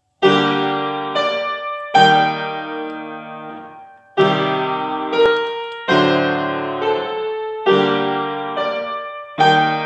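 Acoustic grand piano played in full, ringing chords. A new chord is struck about every two seconds and dies away before the next, with lighter notes added in between.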